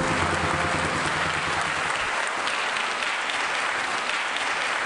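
Theatre audience applauding steadily, with the last low note of the music dying away about two seconds in.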